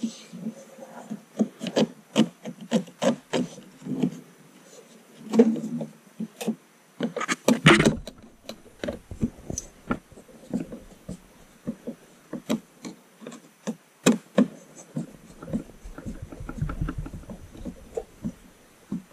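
Screwdriver driving a screw into a 3D-printed plastic fan duct on a printer hotend, with irregular small clicks and scraping as the printed parts are handled and fitted. A denser rattle of clicks comes about seven to eight seconds in.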